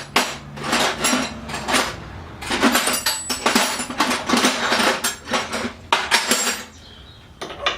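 Metal hand tools clinking and clattering against each other in repeated rattling bursts as sockets and spanners are rummaged through to find the right size for a bolt.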